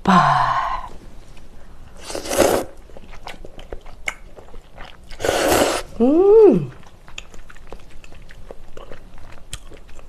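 Close-miked eating of noodles and spicy stir-fried octopus. Two loud slurps come at about two and five seconds. A brief hum that rises and falls in pitch follows the second slurp, and soft chewing and small clicks run between them.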